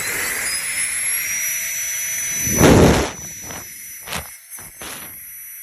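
A small battery-powered electric air pump spins up with a rising whine, then runs steadily at a high pitch. About two and a half seconds in there is a loud rush of air, followed by a few shorter rushes, after which the pump runs on more quietly.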